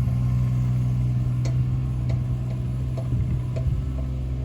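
An engine running steadily with a low hum, with a few light clicks and knocks scattered through it.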